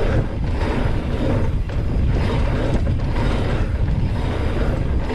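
Trek Roscoe 9 mountain bike coasting and pumping over the rollers of a dirt pump track: the rear hub's freehub ticks while the tyres run on dirt under heavy wind rumble on the microphone. The noise swells and dips about once a second.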